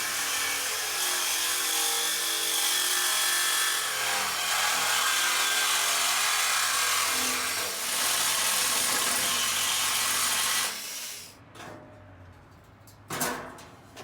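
A power tool cutting 14-gauge sheet steel, running steadily for about ten and a half seconds, then shutting off and winding down. A short burst of noise follows near the end.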